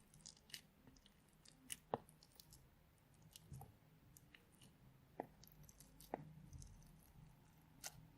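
Slime mixed with Orbeez water beads being pressed and stretched by hand, giving sparse, faint wet clicks and pops, the sharpest about two seconds in.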